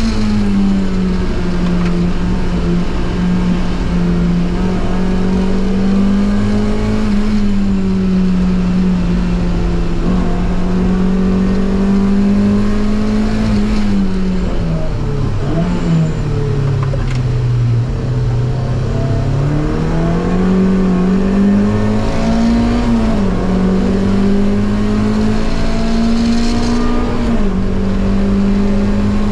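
Mazda MX-5's four-cylinder engine running hard on track, its note rising and falling with throttle and gears. It drops low for several seconds midway while slowing, then climbs again, with two upshifts near the end.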